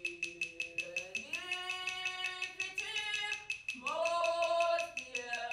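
A woman singing long held notes that slide from one pitch to the next, over a fast, even ticking pulse of about five clicks a second. Her loudest note is about four seconds in.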